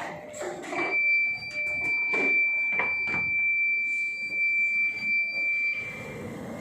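Electronic alarm buzzer sounding one steady high-pitched tone for about five seconds, starting just under a second in, with a few light knocks underneath.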